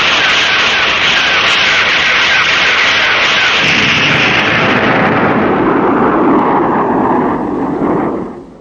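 Tokusatsu sound effect: a long, loud rushing roar. It starts as a hiss, turns to a lower rumble from about halfway, and fades out near the end.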